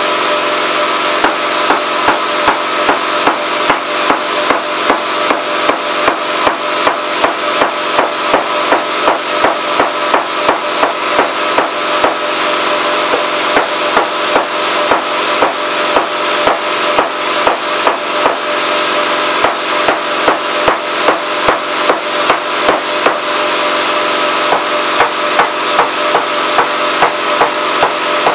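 Repeated mallet blows hammer-forming the edge flange of a 0.025-inch aluminium wing rib over a clamped form block, about two to three strikes a second with one short pause. A steady droning hum runs underneath.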